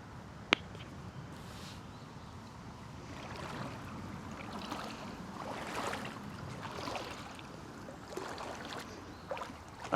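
Water sloshing and splashing in uneven swells, with one sharp click about half a second in.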